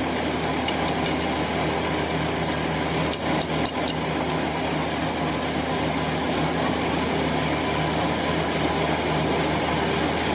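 Metal lathe running steadily with an even machining hum, broken by a few sharp metallic ticks about a second in and again around three and a half seconds.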